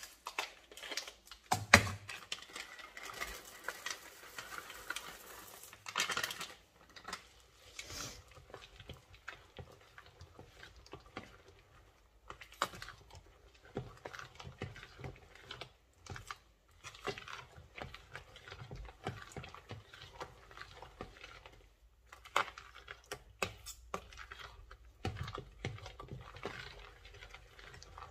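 Metal spoon stirring thick cake batter with pear chunks and chocolate chips in a plastic mixing bowl: irregular clicks and scrapes of the spoon against the bowl.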